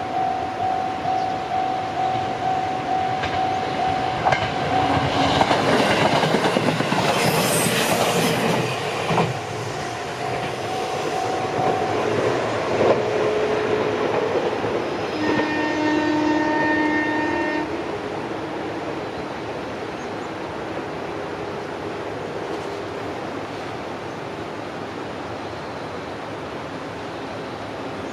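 A Japanese level-crossing alarm rings in a steady repeating pulse while a train passes over the crossing, its wheels clattering on the rails. The alarm stops about halfway through, a train horn sounds for about two seconds, and the train's running sound fades away.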